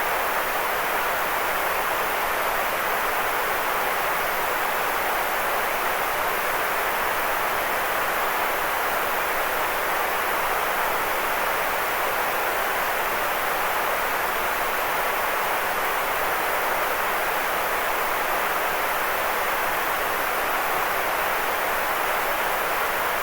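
Steady synthetic noise played as a sleep aid, an even hiss with most of its energy in the middle range, thinner in the bass, unchanging throughout.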